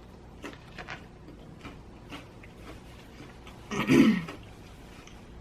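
Faint mouth and chewing clicks while eating pizza. About four seconds in comes a single loud throat clearing, about half a second long, from a woman who is sick with a bad cough.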